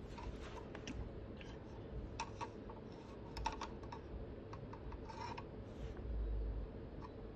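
Faint, irregular light clicks and taps of paintbrush handles knocking against plastic cups as a cat paws at them, with a dull low thump near the end.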